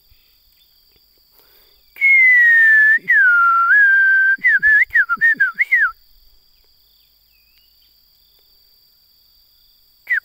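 A person whistling loudly, bird-like: one long slightly falling whistle, then a run of short swooping notes, for about four seconds, followed by quiet with faint birdsong in the distance.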